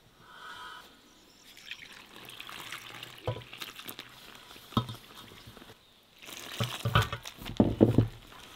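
Hands working wet, fresh cheese curds in an enamel basin, giving wet squishing and liquid sounds with a few knocks against the basin. It is loudest near the end.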